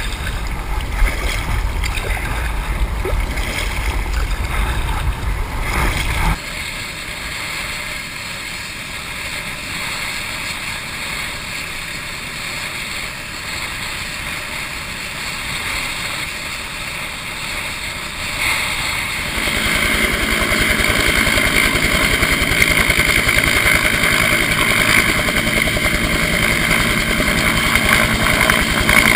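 Wind buffeting the microphone while kayaking, then after a sudden change a rescue helicopter's turbine engine and rotor running steadily. The helicopter gets clearly louder about two-thirds of the way through and lifts off near the end.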